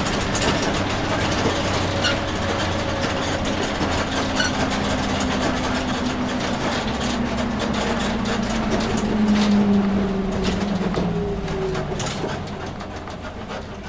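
Engine drone and road noise heard from inside an empty school bus on the move, with frequent small rattles and clicks from the body. The engine note swells about two-thirds of the way through, then fades near the end.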